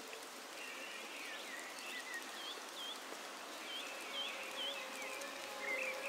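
Quiet rural outdoor ambience: a faint even hiss with scattered short, high chirps, several of them little repeated looping notes.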